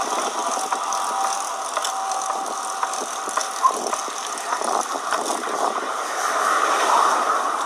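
Bicycle drivetrain ticking and clicking irregularly as it runs, over a steady rushing noise. The noise persists after the derailleur was adjusted and, by the owner's account, also comes from the centre of the bike.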